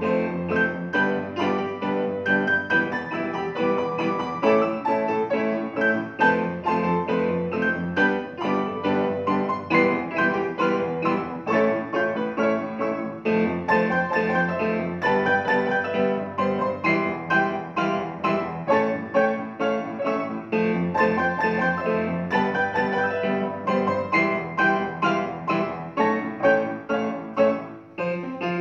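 Upright piano played four hands as a duet: a steady run of chords and melody notes that continues without a break.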